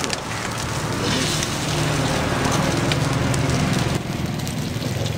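An omelette frying in hot oil in a wok, sizzling steadily, while a metal spatula scrapes and taps against the wok now and then. A steady low hum runs underneath.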